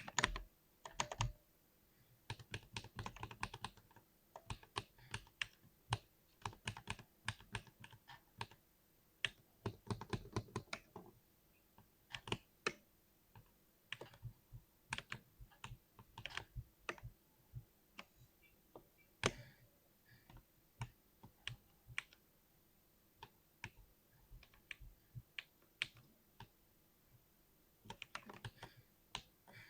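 Typing on a 60% keyboard: quick runs of keystrokes lasting a second or two, with slower, scattered single key presses in between.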